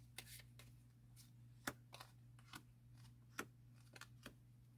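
Tarot cards being handled and dealt from the deck onto a cloth-covered table: about a dozen faint, irregular flicks and taps of card on card and card on cloth, over a steady low hum.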